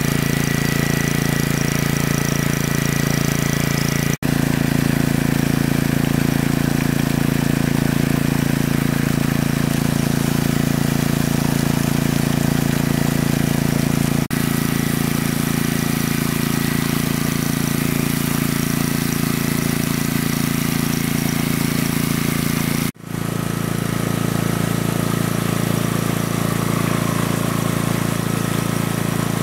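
Engine of a large water pump running steadily at a constant speed. It drops out for an instant three times, and its note shifts slightly after the last break.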